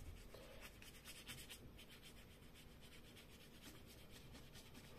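Faint rubbing of a water brush's bristles stroking watercolour paint across card.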